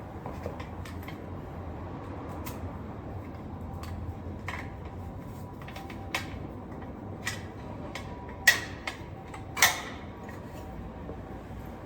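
Bicycle being ridden, rattling and creaking over a low steady rumble, with scattered light clicks and two sharper clacks about a second apart near the end.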